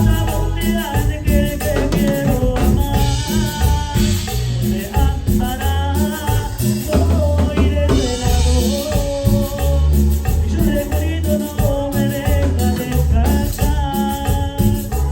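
A live band plays a Latin-style song at full level, with drum kit, a steady bass line, keyboard melody and a shaker-type percussion keeping the beat.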